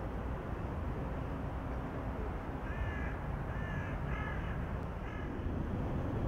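A bird calling four times in quick succession in the middle, over a steady low rumble of outdoor ambience.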